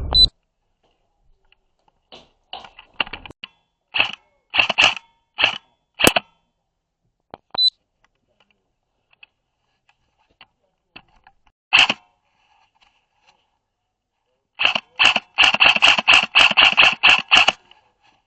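Airsoft guns firing: scattered single shots and short pairs, then a rapid string of shots near the end, about five a second.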